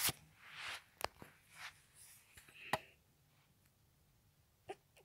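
Handling noise as the phone filming is swung and repositioned: a few light clicks and soft rustles in the first three seconds, then one more click near the end.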